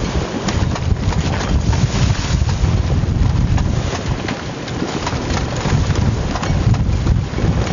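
Wind buffeting the microphone aboard a small sailing yacht: a loud, gusting low rumble with water noise and many small crackles over it.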